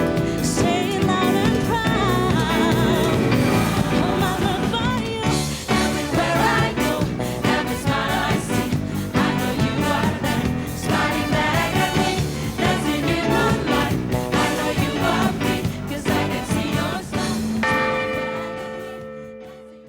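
Choir singing a pop song with a steady beat, a voice with wide vibrato standing out early on. Near the end the choir holds a final chord that fades out.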